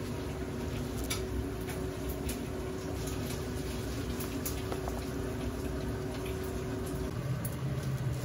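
Steady kitchen background noise with a constant low hum, and a few faint light clinks of tableware as side dishes are spooned out. The hum stops about seven seconds in.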